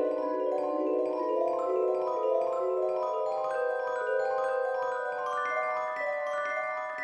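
Background music played on bell-like mallet percussion, a run of short, evenly spaced notes that gradually climbs in pitch.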